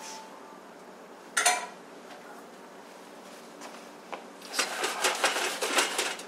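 Metal sheet pan clanks once, then rattles and clatters for a second or two near the end as the shrimp, sausage, potatoes and corn are pushed around and spread out on it.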